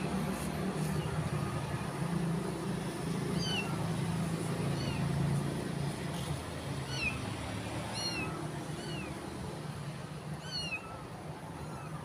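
Small stray kitten mewing, a run of short high-pitched mews each falling in pitch, starting about three seconds in; the kitten is hungry. A steady low hum runs underneath.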